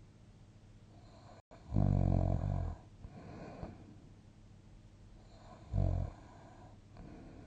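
Snoring during sleep: a loud, pitched snore of about a second, beginning nearly two seconds in, and a shorter one near six seconds, with quiet breathing between.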